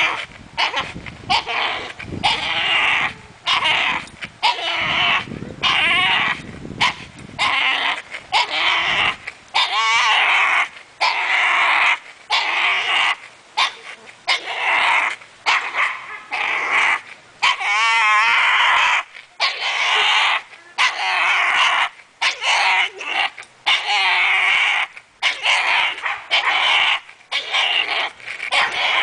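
French bulldog making strained sounds through its clenched teeth while it hangs and swings from a rope toy. The sounds come in short pitched bursts with a wavering pitch, about one a second.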